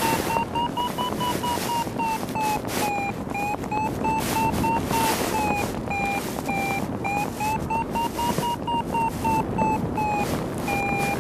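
Paragliding variometer beeping in short, quick beeps, about three a second, its pitch drifting slowly up and down: the climb tone, signalling that the glider is rising in lift. Wind rushes steadily over the microphone, with gusts.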